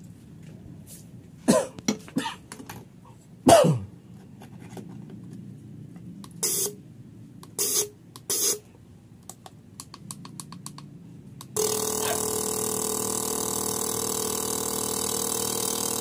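Fuel injector buzzing steadily as it is pulsed on a bench injector tester and sprays into a glass sight tube, starting about three-quarters of the way through. Before it, a few short, sharp bursts.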